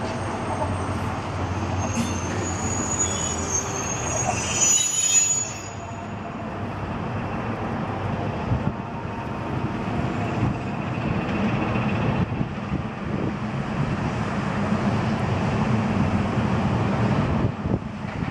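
Electric suburban train running on the rails. For a few seconds near the start, high wheel or brake squeal rings over the rumble and stops abruptly. After that the wheel-and-rail rumble grows slowly louder.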